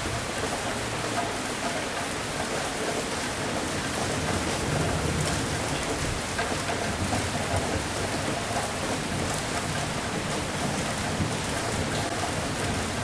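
Steady heavy rain hissing on surfaces, with a low roll of thunder that swells about midway and fades.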